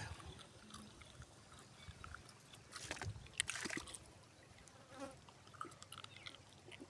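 Faint outdoor ambience: a low hiss with scattered brief rustles and clicks, busiest about three to four seconds in.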